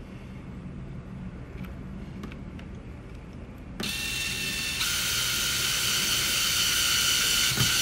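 DeWalt cordless drill/driver running as it drives screws into the back of a steering wheel: the motor starts about four seconds in with a steady whine and steps up in speed a second later. Before it starts there are only faint handling clicks.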